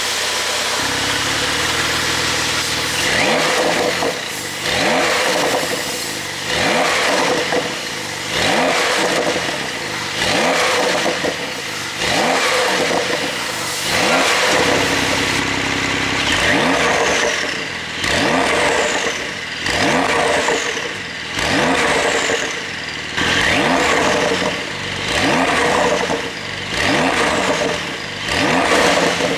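Porsche 911 992 Carrera S twin-turbo flat-six idling, then revved in short blips about every two seconds through its exhaust in flap-open mode, each rev rising and falling back to idle. There is a brief return to idle about halfway through.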